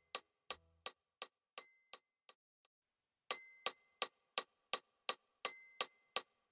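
Quiet background music: a clock-like ticking beat about three times a second, with bell-like chimes ringing on some of the ticks. The ticking pauses for about a second partway through.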